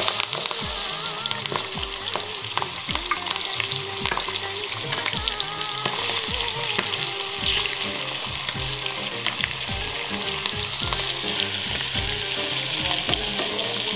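Marinated sardine roe sizzling and crackling in hot oil in a frying pan, a steady hiss full of small pops.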